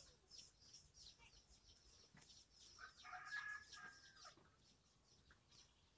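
Near silence with faint birds in the background: short high chirps throughout, and a longer drawn-out call about three seconds in.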